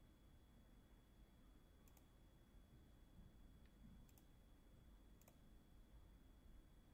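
Near silence: faint room tone with a thin steady high tone, broken by four faint, sharp clicks spread between about two and five seconds in.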